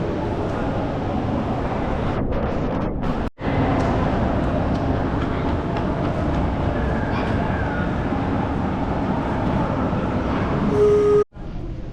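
Steady running noise of a moving vehicle, cut off abruptly about three seconds in and again near the end.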